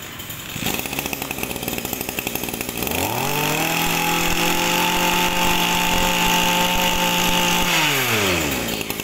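Shindaiwa 220 brush cutter's 22 cc two-stroke engine idling. About three seconds in it is revved up to a steady high speed and held there, then let back down toward idle near the end.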